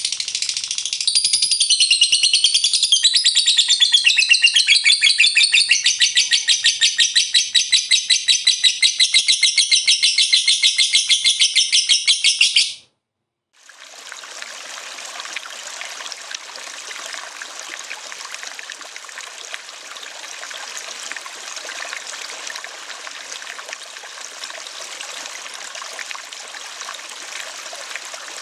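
A lovebird sings a long, loud ngekek trill: a rapid, evenly pulsing chatter that cuts off abruptly about halfway through. After a brief gap, a steady sound of running stream water begins.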